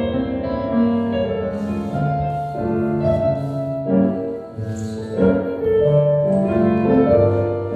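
Piano music: a slow, classical-style melody of held notes over sustained low bass notes.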